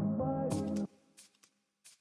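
Background music with pitched notes and a beat that cuts off suddenly a little under halfway through, leaving near silence with a few faint high ticks.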